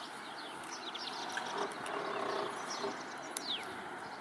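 Several birds calling around a lake: quick high chirps and twitters throughout, a lower call about two seconds in, and a sharp click followed by a falling whistle about three and a half seconds in.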